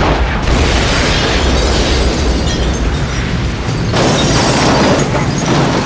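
Bomb explosion: a sudden blast that rumbles on heavily for several seconds and swells again about four seconds in.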